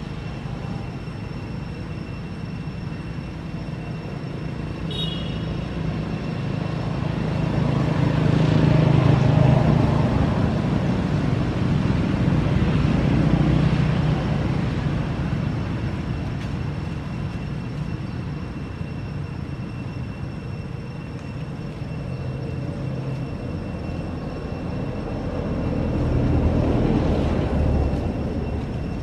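Low engine rumble of passing motor traffic, swelling and fading twice as vehicles go by, over a faint steady high whine. A short high chirp sounds about five seconds in.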